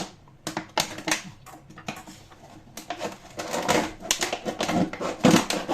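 A run of irregular clicks and clatters from small hard objects and containers being handled in a kitchen, sparse at first and busier in the second half.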